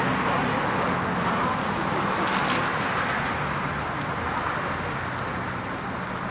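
Steady city street traffic noise, a hum of cars on the road that eases off slightly in the second half.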